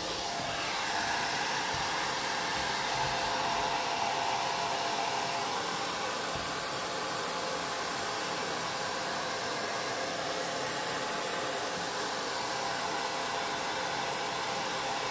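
Hair dryer blowing steadily, a constant rush of air with a faint steady whine, slightly louder in the first few seconds.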